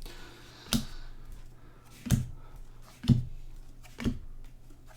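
Trading cards from a freshly opened pack being set down one by one on a table: four sharp taps about a second apart, over a faint steady hum.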